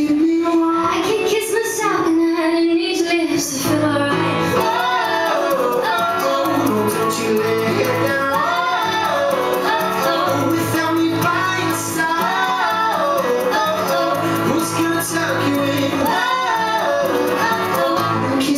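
Woman singing a song live over acoustic guitar. It opens on one long held note, and from about four seconds in the melody moves quickly over a low accompaniment.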